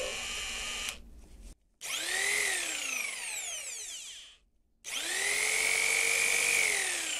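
1980s AEG FSPE 60 electronic jigsaw, just restored, test-run in three short bursts on its trigger. Its motor stops about a second in. It then twice whines up to speed and winds down, the last run held for about two seconds before winding down near the end.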